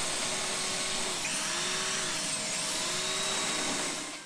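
Ozito electric belt sander running steadily as it scuffs a fibreglass-coated plywood deck, its motor pitch dipping and recovering a few times as it is pressed into the work; the noise fades out near the end.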